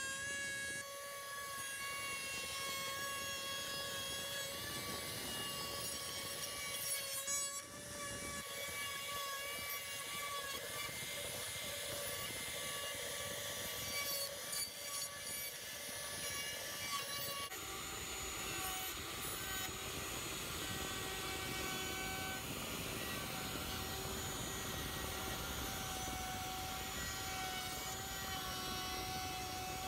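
Compact router running at speed with its steady motor whine, its bit cutting a shallow pocket into pine as it is pushed along a guide jig. A little past halfway the whine steps up to a higher pitch.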